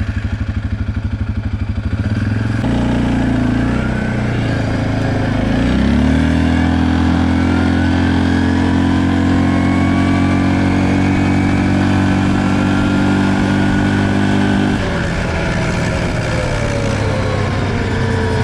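Stels Leopard ATV engine pulling away through its CVT: the note rises twice in the first six seconds, runs steadily for several seconds, then drops sharply about fifteen seconds in as the throttle is closed.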